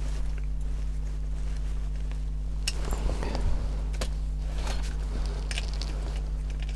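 Light clicks and rattles from a plastic RC car chassis with its wheels fitted being picked up and turned over in the hands, heard over a steady low electrical hum.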